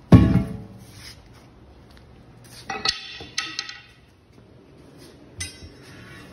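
A loud hammer blow on steel at the start, ringing as it dies away, while breaking the bead of a truck tire on its steel wheel. About three seconds in, a quick run of metallic clinks and clanks as a steel tire iron knocks against the rim, and one more clank a couple of seconds later.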